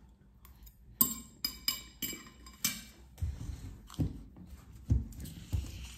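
Cutlery clicking against a plate about five times, each click ringing briefly, then close-miked chewing of a mouthful of pasta with soft low thumps.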